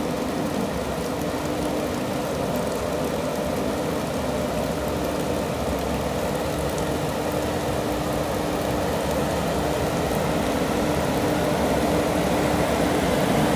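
Indian Railways WAG-7 electric locomotives running slowly, with a steady hum that grows gradually louder as they come out of a tunnel. Heavy rain hisses over it.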